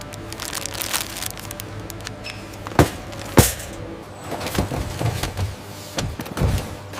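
Factory machinery clattering: a steady low hum with repeated sharp clacks and knocks, the two loudest strikes about three seconds in, over background music.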